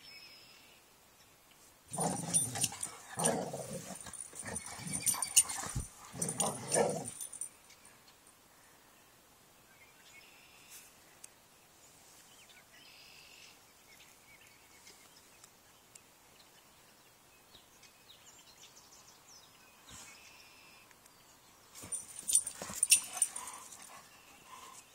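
Dogs growling and barking in two bouts: a loud, choppy one starting about two seconds in and lasting some five seconds, and a shorter one near the end.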